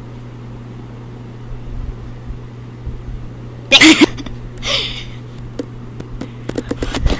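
A steady low hum, then about four seconds in a short, very loud squeal from a girl's voice right against the microphone, followed by a breathy puff; near the end, a run of clicks and knocks from the phone being handled.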